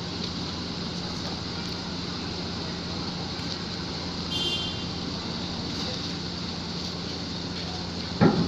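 Heavy truck engines running steadily, with a constant low hum under them. A brief high squeal comes about four seconds in, and a short loud sound just before the end.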